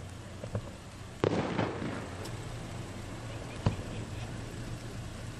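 Aerial fireworks going off: a few small pops, then a sudden loud burst about a second in that trails into crackling, and a single sharp bang about two-thirds of the way through.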